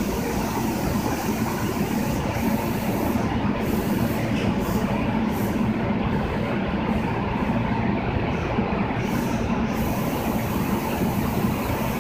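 Kita-Osaka Kyuko 8000 series subway train standing or creeping at an underground platform: a steady hum and rumble with no sudden events.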